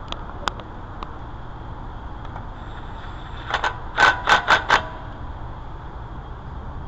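A couple of light clicks, then a quick run of about six sharp metal-on-metal clinks with a brief ring, about three and a half to five seconds in, over a steady low hum.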